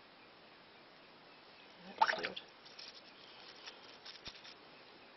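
Wet scrubbing and handling of a glass canning jar with a toothbrush over a sink of soapy water. Quiet at first, then a louder wet burst about two seconds in, followed by scattered small scrapes, clicks and drips.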